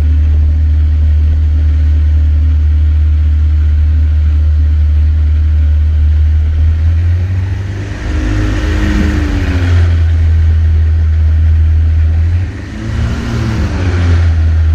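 Ultralight trike's engine running at idle while the trike taxis, revving up and back down twice: once from about seven seconds in and again near the end.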